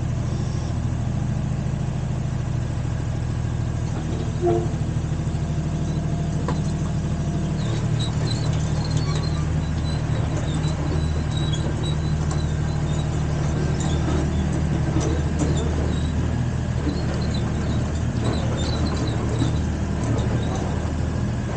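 Mini excavator engine running steadily; its note shifts about seven and a half seconds in, and faint short high chirps sound over it from then on.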